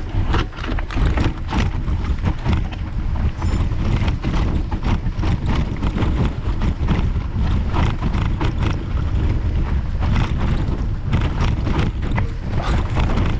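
Mountain bike descending rough dirt singletrack: continuous irregular rattling and clattering of the bike and tyres over roots and stones, over a steady low rumble.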